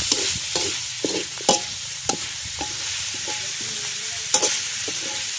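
Eel pieces sizzling in a hot wok while being stir-fried, with a spatula scraping and knocking against the pan every half second or so.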